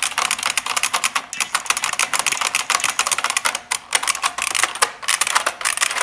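Fast typing on an IBM Model M keyboard: a dense, continuous stream of buckling-spring key clicks.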